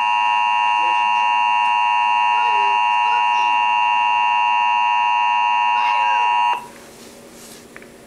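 Emergency Alert System attention signal, the two-tone alert (about 853 and 960 Hz together) that precedes a warning, played through a TV speaker. It holds a steady, piercing tone and cuts off abruptly about six and a half seconds in.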